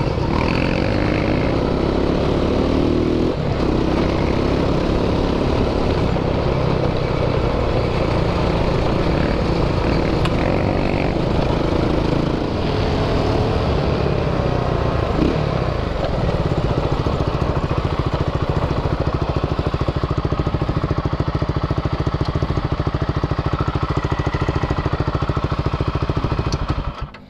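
Quad's engine running while riding, revving up and down, then settling into a steady idle for roughly the last ten seconds before dropping away at the very end.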